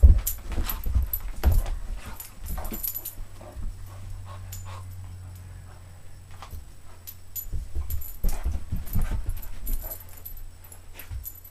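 A Vizsla dog scrabbling and bumping around on a carpeted floor against a person's legs as it searches for a hidden bone, with scattered knocks and rustles. Busy in the first few seconds, quieter in the middle, busy again near the end.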